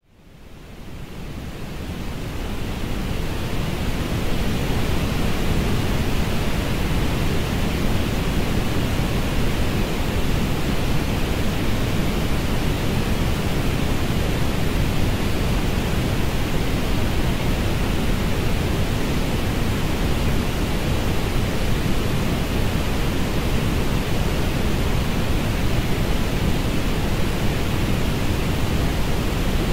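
Synthetic orange noise: a steady, even hiss weighted toward the low end. It fades in over the first few seconds.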